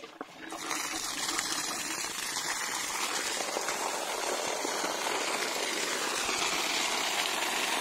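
Well water gushing out of overhead pipe outlets and splashing onto dry ground. The flow comes on about half a second in and then runs steady.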